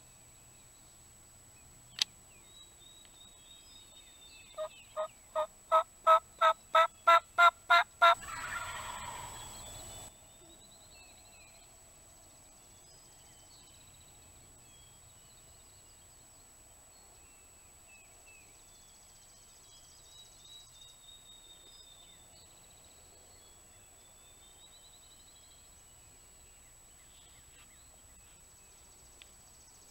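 Wild turkey: a run of about a dozen loud, evenly spaced yelps rising slightly in pitch, followed at once by a rough, rattling gobble about two seconds long. A sharp click comes about two seconds in, and faint songbird chirps come later on.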